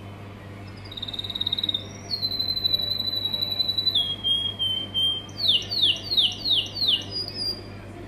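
Canary singing: rapid trills held at steady pitches that step up and then down. Near the end come about five quick downward-sweeping notes.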